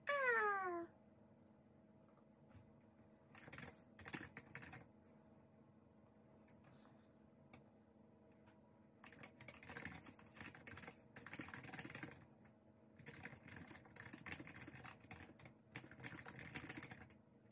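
A short high voice sliding down in pitch right at the start, then computer keyboard typing in spells: a brief run about three seconds in, and a longer run of typing from about nine seconds on.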